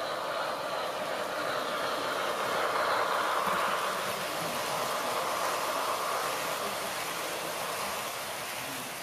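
HO gauge model passenger coaches rolling past on the track, a steady wheel-on-rail running noise that swells to its loudest about three seconds in and then slowly fades.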